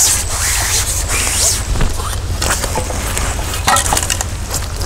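Splashing as a hooked ide thrashes in a landing net drawn out of the water, followed by a few sharp knocks and rattles as the net and pole are handled.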